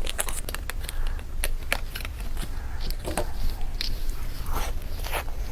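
Close-miked mukbang eating sounds: soft wet clicks and smacks of a mouth chewing chocolate towel roll cake, scattered irregularly.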